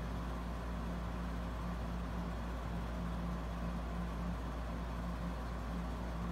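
Steady low hum of background noise with a faint steady tone, unchanging throughout.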